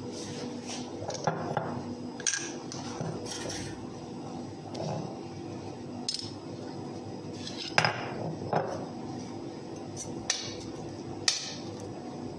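Metal spoon clinking and scraping against a glass pizza-sauce bottle and a metal pizza tray while scooping out and spreading sauce. There are about six sharp clinks, scattered, the loudest about eight seconds in.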